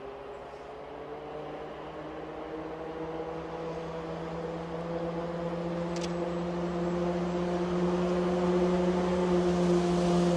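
Snowplow locomotive's diesel engine approaching, its steady drone growing louder as it nears. A single sharp click comes about six seconds in.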